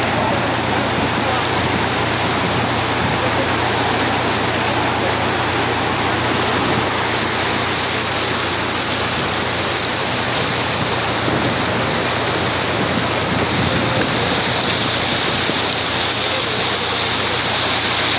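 Floodwater rushing and churning through a concrete bridge opening: a loud, steady rush of fast water, turning hissier about seven seconds in.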